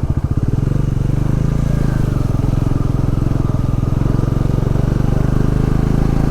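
Motorcycle engine running under way. It pulses distinctly at low revs for the first couple of seconds, then runs smoother with its pitch rising slightly.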